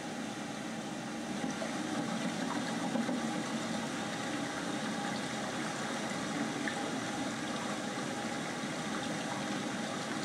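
Steady rushing roar of falling water from the exhibit film's soundtrack, played through a loudspeaker; it swells a little about a second and a half in.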